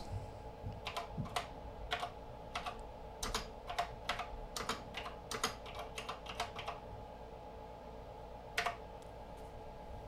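Keys of an ASCII parallel keyboard being typed, a quick run of irregular key clicks for about seven seconds, then one last keystroke a little later, over a faint steady hum.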